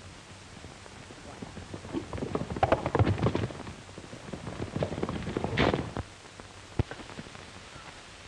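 Horses' hoofbeats on dirt as riders gallop off: a rush of irregular beats starting about two seconds in and dying away about six seconds in, over a steady hiss. A single sharp crack follows near the end.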